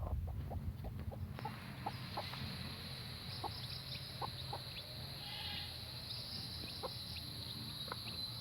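Domestic hen clucking softly in short, scattered calls. A steady high insect drone comes in about a second and a half in, over a low rumble.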